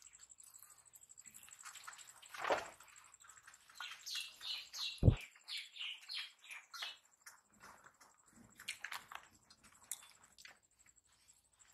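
Soft clicks and smacks of people eating rice by hand from steel plates, with a bird chirping a quick run of short falling notes midway and one sharp knock about five seconds in.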